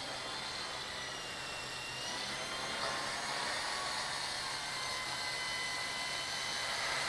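Wltoys V912 radio-controlled helicopter in flight: the whine of its brushless main-rotor motor and the noise of its rotor. A few faint tones drift slowly in pitch, and the sound grows louder from about two seconds in as the helicopter comes closer.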